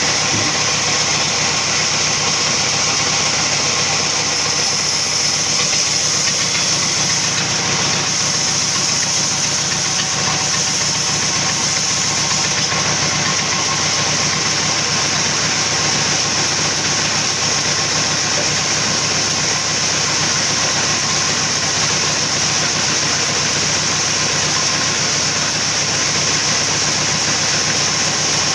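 Sawmill saw and its motor running steadily, a constant low hum under a loud high hiss that stays even throughout.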